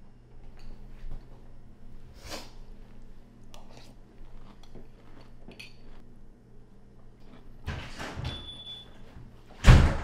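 Metal spoon clinking in a ceramic cereal bowl, with small scattered clicks, then about eight seconds in a door opening with a short squeak, and near the end a loud door thud.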